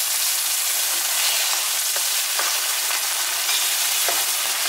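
Tomato spaghetti sauce sizzling steadily in a non-stick frying pan after a glass of water has been added. A spatula stirs it near the end with faint scraping ticks.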